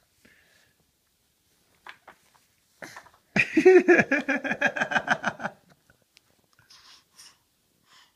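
A toddler's voice: a loud, high-pitched babbling cry of about two seconds, rapidly pulsing, starting a little over three seconds in.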